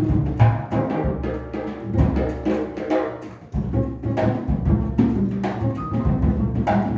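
Jazz piano trio playing live: piano chords over upright bass, with the drum kit prominent and striking steadily.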